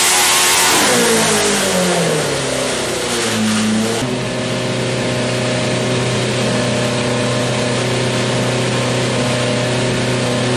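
Hart 3.0-litre V8 Formula 1 engine running on a dynamometer test bench. Its revs fall away from high rpm over the first three seconds or so, then it settles into a steady idle.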